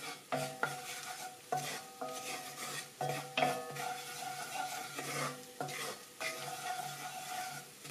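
A utensil stirring a butter, garlic and flour roux around a frying pan over low heat: repeated scraping strokes against the pan bottom, each carrying a steady tone, with light clicks between strokes and a faint sizzle. The flour is being cooked until its raw taste is gone.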